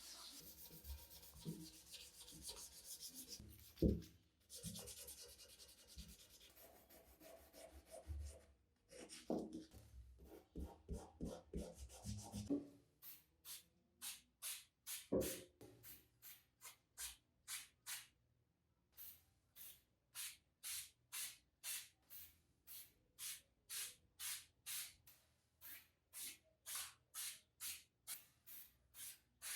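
Hand sanding with sandpaper. First comes irregular, continuous rubbing with a few knocks. About halfway through, it turns into steady back-and-forth strokes at about two a second, with a short pause in the middle.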